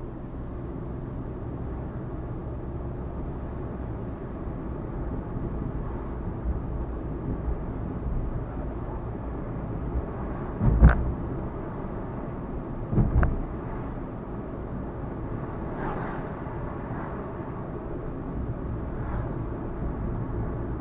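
Steady low rumble of a vehicle on the road. Two heavy thumps about two seconds apart come near the middle, and a few faint ticks follow later.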